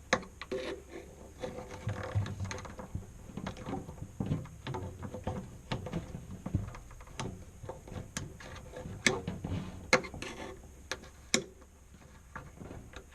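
Irregular clicks, knocks and rattles of hands and tools working the old heating element loose from its rubber seal in a washing machine tub.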